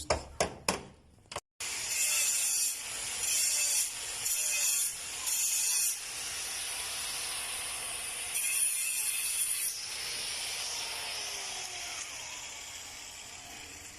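Handheld power tool working on sheet metal: a hissy grinding noise that comes and goes in short bursts, then runs steadily and slows down with a falling pitch near the end.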